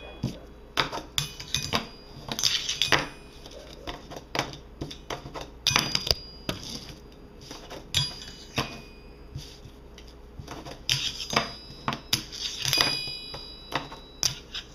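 Fingerboard tricks on a metal fingerboard rail: irregular clacks of the board popping and landing, with metallic clinks and scrapes as its trucks grind along the rail. Some hits leave a brief high ring from the metal, most clearly late on.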